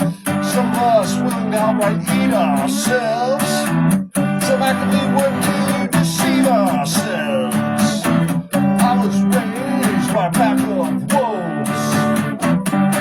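Music: an instrumental guitar passage of a song, with steady chords under a wavering melody line. The sound drops out briefly twice.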